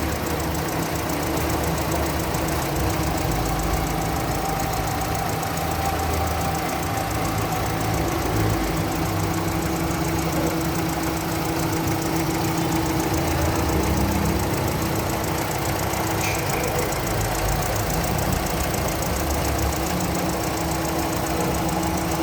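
Hyundai Atoz petrol engine idling steadily, an even hum with a fast, light ticking over it.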